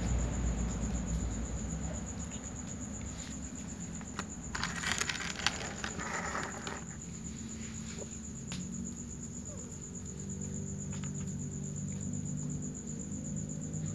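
A cat eating dry kibble crumbs off a tray: scattered short crunches and clicks, with a louder rustling stretch about five seconds in. A steady, high insect trill sounds behind.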